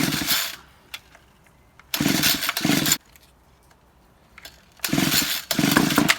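Homelite 26cc two-stroke strimmer being pull-started: the recoil starter is yanked about four times, mostly in quick pairs, and each pull turns the engine over in a short burst. The engine is primed with starting spray in the air intake, a check that it has spark.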